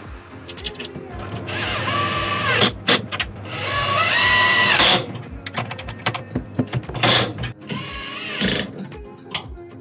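Cordless drill-driver running in several short bursts, each spinning up in pitch and then holding speed, as screws are driven at a locker door's hinges. The longest run is about halfway through.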